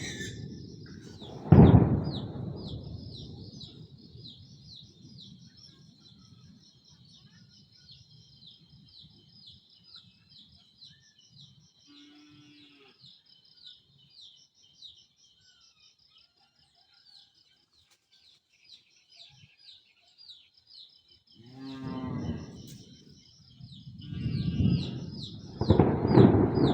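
Thunder: a sharp clap about a second and a half in, its rumble fading over several seconds, then heavy rumbling building again near the end. Rapid high-pitched chirping of insects or birds continues throughout.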